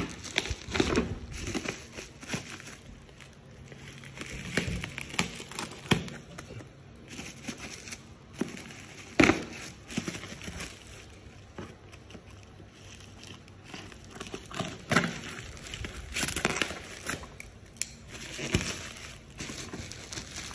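Packaging being handled: plastic and cardboard crinkling and rustling in irregular bursts, with scattered clicks and knocks, the loudest about nine seconds in.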